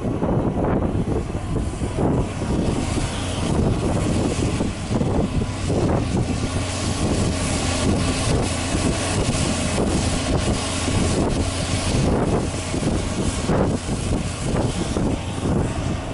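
Caterpillar 330D hydraulic excavator's diesel engine running steadily with a constant low hum while it works. Wind buffets the microphone in irregular gusts.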